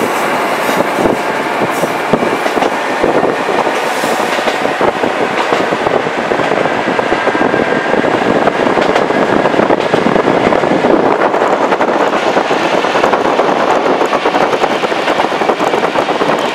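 KiHa 40-series diesel railcar running along the line, heard from inside the passenger cabin: a steady, loud rumble of the engine and the wheels on the rails, with a few sharp clicks in the first few seconds.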